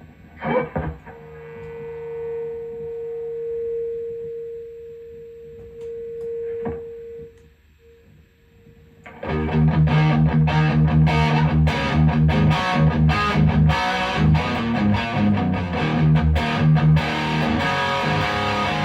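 Electric guitar played through a Marshall DSL40CR tube amp: a single note is held and sustains for several seconds, then after a short pause loud distorted playing with fast picked strokes starts about nine seconds in.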